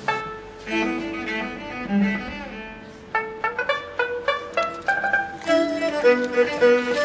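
Background music: a light tune on bowed strings with short plucked string notes.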